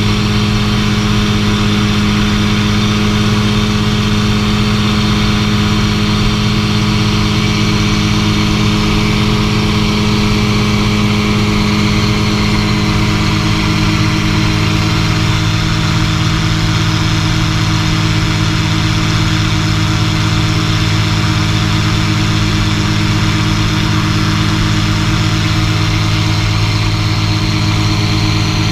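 Searey LSX amphibian's engine and pusher propeller droning steadily in cruise flight, heard from inside the cockpit along with the rush of wind. The pitch and level hold even throughout.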